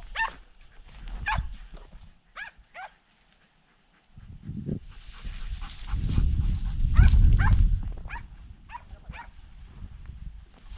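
Podenco hounds giving short, high yelps while hunting through scrub, a few single calls and then a quick run of them about seven seconds in. A low rumbling noise swells from about four to eight seconds in and is the loudest thing there.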